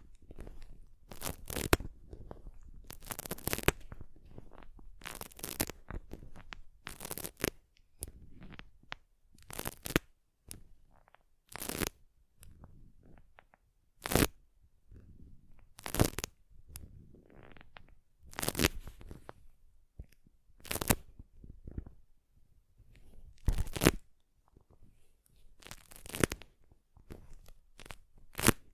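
Close-miked ASMR handling sounds: sharp crackles or rips every second or two over soft rustling, denser in the first half.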